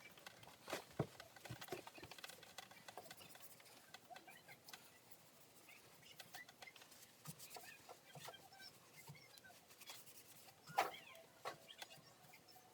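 Faint scattered clicks and light knocks of PVC pipe and fittings being handled during dry fitting, with two louder knocks, one about a second in and one near eleven seconds.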